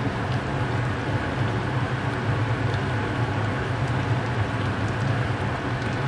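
Creamy chicken and carrot sauce simmering in a nonstick frying pan over high heat, stirred with a plastic spatula, under a steady low hum and hiss.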